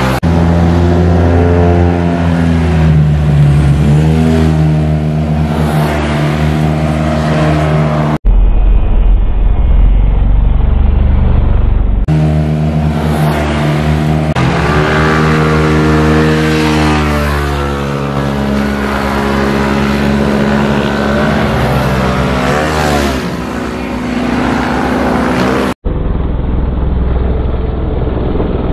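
Small motor-scooter engines revving as scooters accelerate through a bend one after another, each engine note rising and then dropping as the scooter passes. The sound changes abruptly at several points where one pass is spliced to the next.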